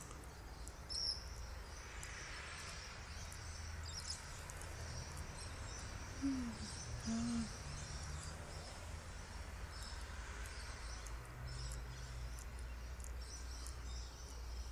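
Outdoor dusk ambience: insects and birds chirping high and continually over a steady low hum. A short high chirp comes about a second in, and two short low calls come about six and seven seconds in.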